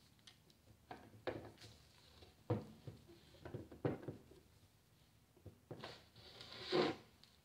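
Metal housing of a Milwaukee 4094 drill motor handled as its gearbox case is worked apart by hand: scattered light knocks and clicks, then a longer, louder rubbing scrape near the end as the case comes free.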